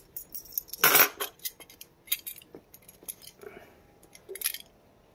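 Metal belt-buckle hardware clinking and clicking as it is handled and worked loose from the end of a thick belt. There are a few separate sharp clicks, the loudest about a second in.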